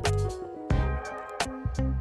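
Background music with a steady beat: plucked guitar-like notes over drums.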